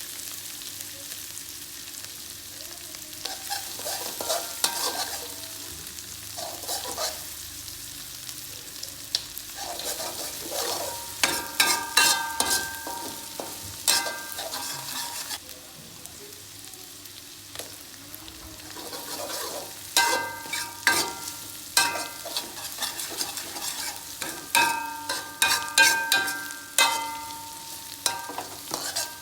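Food sizzling in hot oil in a pan while a metal spatula stirs it, clinking and scraping against the pan with short ringing notes. The clinks come in two busy spells, one in the middle and one in the last third.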